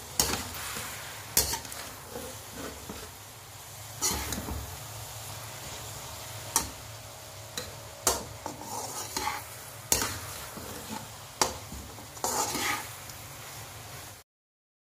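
A slotted metal spatula scraping and knocking against a steel frying pan as chicken and vegetables are stirred and tossed, over a steady sizzle. The clacks come irregularly, every second or two, and the sound cuts off suddenly near the end.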